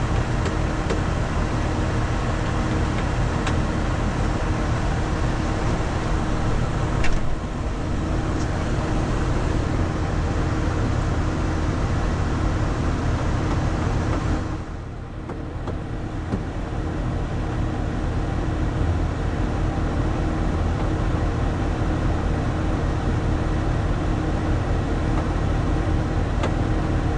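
A New Holland 8770 tractor's diesel engine running steadily at idle, heard from inside the cab with the air-conditioning fan blowing. The level briefly drops about halfway through.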